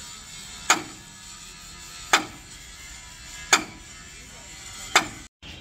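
Heavy sledgehammer blows on a steel truck chassis rail: four strikes about a second and a half apart, each a sharp metallic bang with a short ring.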